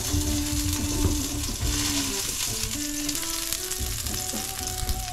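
Food sizzling as it is sautéed in a pan, with a tune playing faintly underneath.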